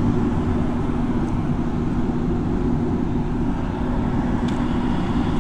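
Steady low rumble of road traffic and idling vehicles, with a constant low hum underneath.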